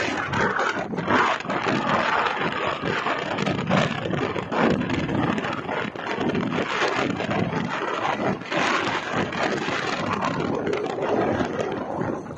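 Wind buffeting a phone microphone on a moving motorbike, mixed with road and engine noise: a loud, uneven rush that surges and dips every second or two.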